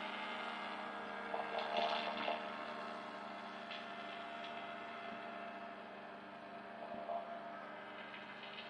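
Powered parachute's engine and propeller running at a distance, a steady hum of constant pitch that slowly fades as the craft flies away.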